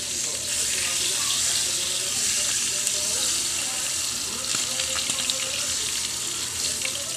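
Whole fish frying in hot oil in a pan: a steady sizzle with scattered small crackles.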